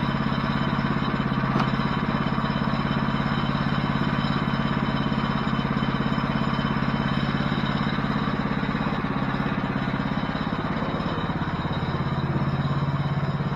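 Woodland Mills HM-126 portable bandsaw mill's gasoline engine running steadily at speed while squaring a black walnut log into a cant, with a steady hiss over the engine; the engine note sags briefly about ten seconds in and picks back up.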